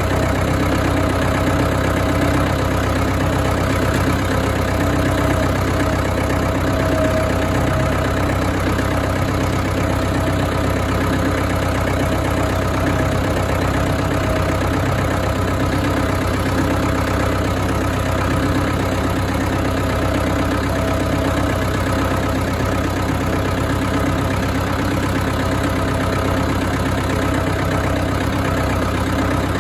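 Ford farm tractor's engine running at a steady, even pitch as the tractor is driven along.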